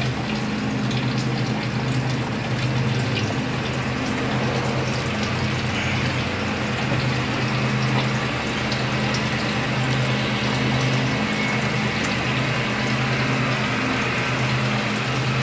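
Engine coolant pouring in a steady stream from the radiator drain petcock into a drain pan, running fast with the radiator cap off, as the pan fills up.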